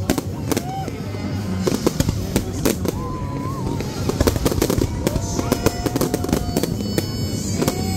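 Fireworks display: aerial shells bursting in a rapid, dense run of bangs and crackles. Long pitched tones glide up and down over the bangs.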